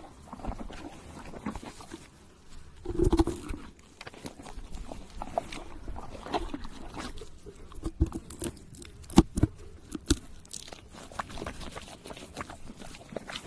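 Crunching and chewing: eating sounds made up of scattered sharp clicks and crunches, with a louder burst about three seconds in.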